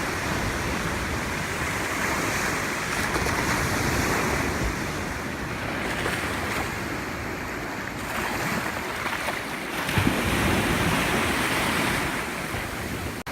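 Ocean surf washing onto a sandy beach, rising and falling in swells, with wind rumbling on the microphone.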